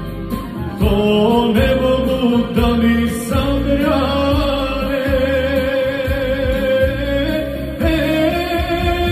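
A man singing a Bosnian folk-pop song into a microphone over a backing track with a steady bass beat.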